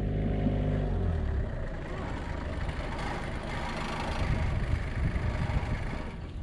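Pickup truck towing a loaded trailer driving slowly past and pulling up. Its steady engine hum fades about a second and a half in, leaving a noisier rumble of engine and movement.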